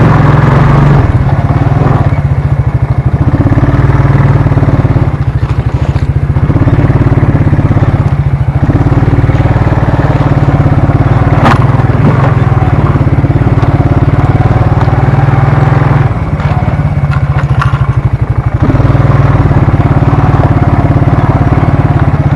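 ATV engine running steadily, close to the microphone, as the quad is ridden along a rough trail. It eases off briefly about two-thirds of the way through, and a single sharp knock comes about halfway.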